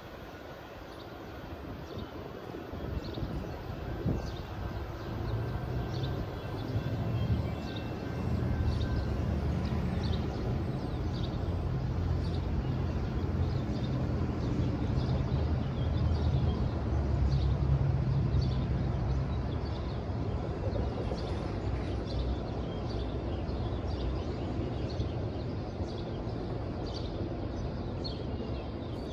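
A distant low engine rumble that builds over several seconds, peaks about two-thirds of the way through and then eases off, with small bird chirps repeating about once a second.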